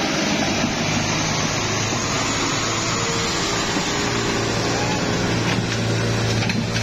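Mitsubishi light truck's diesel engine running steadily under load as it climbs a slippery mud slope, its chain-wrapped rear wheels churning through the mud.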